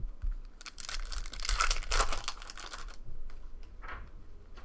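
A foil trading-card pack being torn open by hand, the wrapper crinkling and crackling for about two seconds.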